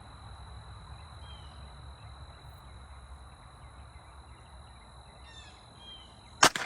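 Quiet outdoor background with a few faint bird chirps, then near the end a single sharp Glock pistol shot whose echo trails off.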